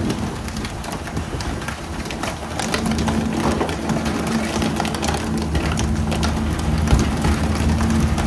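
A fishing boat's engine running steadily, under a constant spatter of splashing water with scattered sharp knocks.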